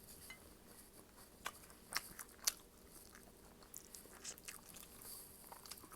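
A person eating close to the microphone: quiet chewing with scattered short, sharp clicks and smacks, the loudest about two and two and a half seconds in.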